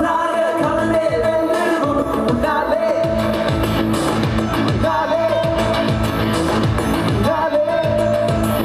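Live pop song performance: a male singer into a microphone over music with a steady dance beat.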